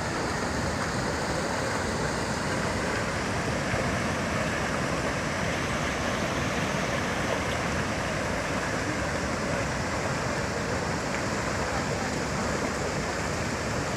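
Steady rushing of a debris flow of mud and water coming down, an even wash of noise with no breaks.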